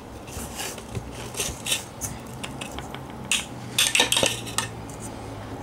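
A hand rubbing and pressing crushed biscuit crumbs in a pan: gritty scraping and rustling in short strokes, with small knocks against the pan, busiest and loudest about four seconds in.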